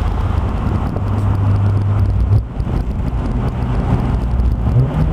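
Honda S2000's four-cylinder engine heard from inside the car through an HKS exhaust with a test pipe, pulling under load. The engine note breaks off briefly about two and a half seconds in, as at a gear change, then steps up in pitch near the end.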